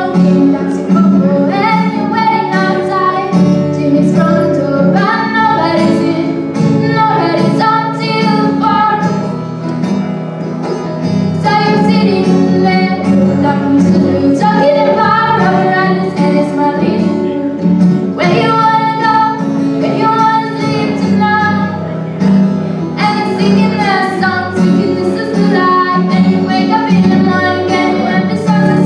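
A young woman singing solo to her own strummed acoustic string accompaniment, the vocal line broken by short pauses between phrases.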